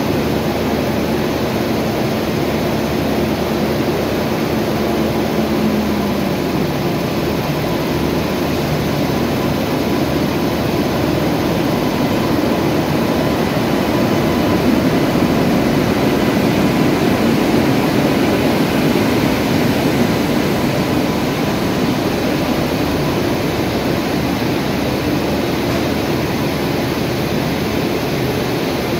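WAP7 electric locomotive hauling an express train out of a station, its steady machinery hum swelling to its loudest as it passes, followed by the coaches rolling by.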